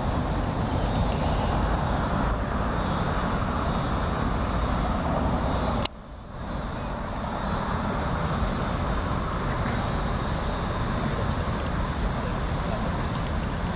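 Steady outdoor background noise with a low rumble and no distinct events; it drops away sharply for a moment about six seconds in, then returns.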